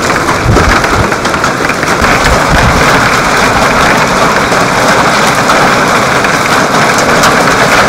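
Severe thunderstorm wind gusts driving heavy rain, a loud steady rushing noise, with the wind buffeting the microphone in low rumbling blasts during the first few seconds.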